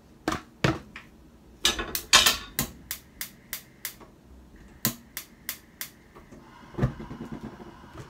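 A gas hob's igniter clicking repeatedly to light the burner: a run of sharp clicks, some about three a second, in several bursts.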